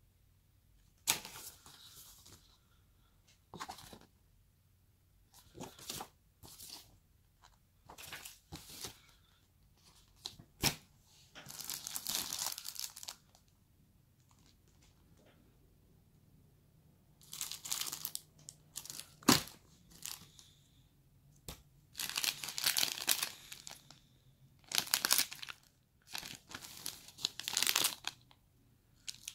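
Clear plastic packaging bags and paper inserts handled and crinkled in irregular bursts of rustling, with a few sharp clicks in between.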